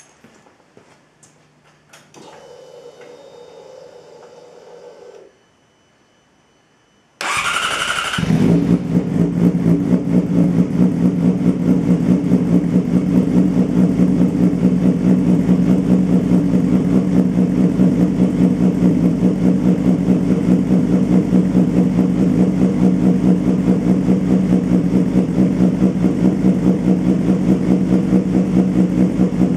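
A low electric whir for about three seconds, typical of a fuel pump priming. Then the starter cranks briefly, and the 2006 Yamaha R6's inline-four engine catches and settles into a steady, fast-pulsing idle through an aftermarket slip-on exhaust.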